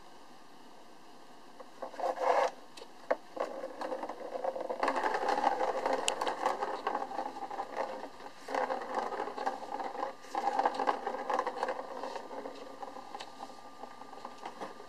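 A plastic ball rolling around the circular plastic track of a cat scratcher toy, set going by a kitten batting at it. After a couple of sharp knocks about two and three seconds in, there is a continuous rolling sound that swells and dips several times and fades near the end.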